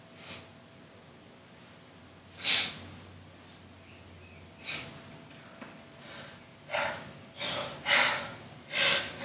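A person's sharp, noisy intakes of breath, about six of them, coming closer together toward the end: the 'ah… ah…' build-up to a sneeze.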